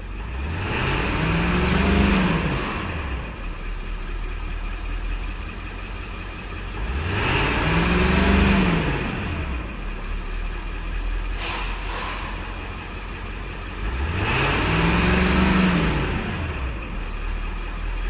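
Ford 7.3 L Power Stroke V8 turbo-diesel revved from idle three times, each rev rising and falling back over about three seconds, settling to a steady idle between them. The engine is running on after a leaking injector was resealed, and the revs test how injection control pressure responds.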